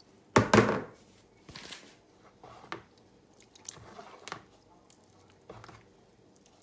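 Metal spoon stirring thick fermented rice-flour appam batter in a bowl, with scattered wet squelching and scraping strokes. A single loud knock comes about half a second in.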